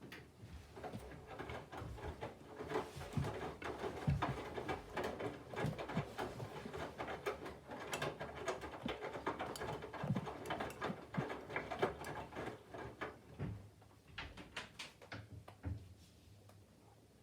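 Candy front-loading washing machine turning its drum during the load-weighing phase, the laundry tumbling with a stream of irregular soft thumps and clicks. The sound starts suddenly and stops about 16 seconds in.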